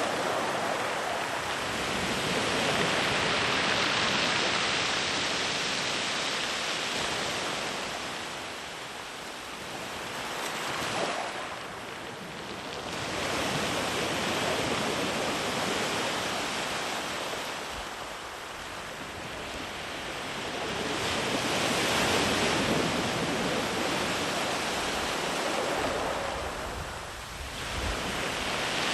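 Sea waves breaking and washing up a sandy beach, the surf swelling and ebbing about every six to eight seconds in four rolling surges.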